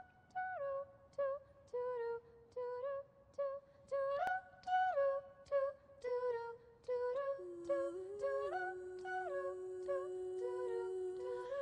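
A cappella singing: short wordless vocal notes, about two a second, stepping up and down in a melody. About seven seconds in, a second voice comes in with a long, low held note beneath them.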